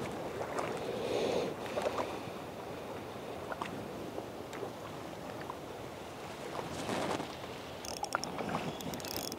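Small waves lapping at the lakeshore with light wind, a steady wash, with a quick run of sharp light clicks near the end.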